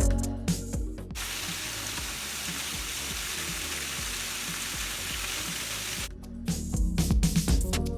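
Background music with a beat, cut off about a second in by about five seconds of steady rushing water from the waterfall, then the music starts again near the end.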